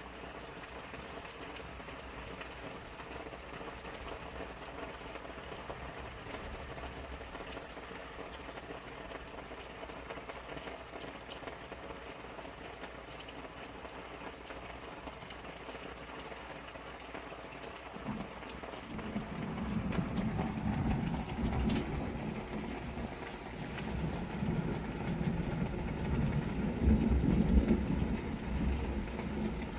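Steady rain falling outside a window, the nearest drops pattering on tarps. About two-thirds of the way in, a long low rumble of thunder builds, swelling twice before easing.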